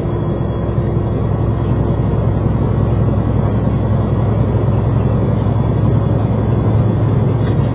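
Semi truck heard from inside its cab while cruising at highway speed: a steady drone of engine and road noise, even throughout.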